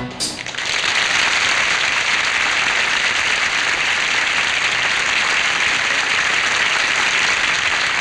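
Studio audience applauding steadily at the close of a song.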